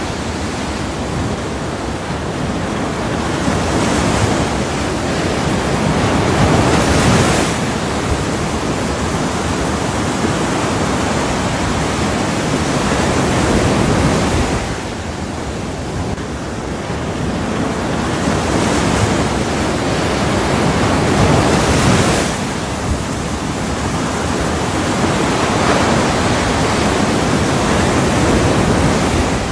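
Ocean waves washing in as a steady hiss that swells and falls back about every seven or eight seconds.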